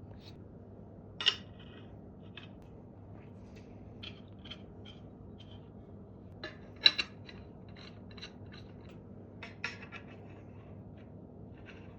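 Small metal pipe fittings clinking and scraping as they are handled and fitted together: scattered light ticks, with sharper clinks about a second in, near the middle and near ten seconds. A steady low hum runs underneath.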